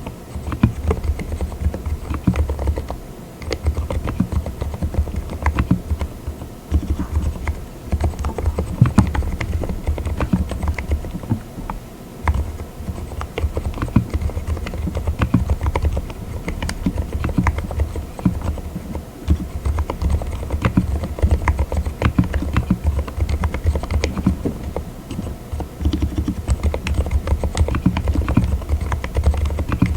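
Mechanical keyboard with Cotton Candy silent linear switches (36 gf) being typed on continuously: fast, muted keystrokes with a low thud, pausing briefly a few times.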